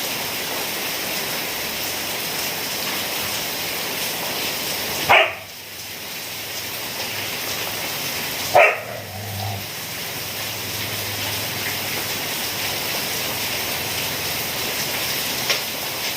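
Steady rain hissing, broken twice by a short, loud, pitched sound about three and a half seconds apart.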